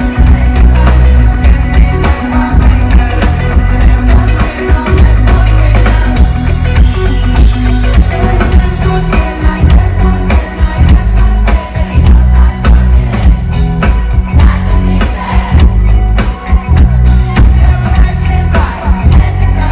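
Live rock band playing loud music through a festival sound system, heard from the crowd: heavy bass and a steady driving drum beat, with guitar.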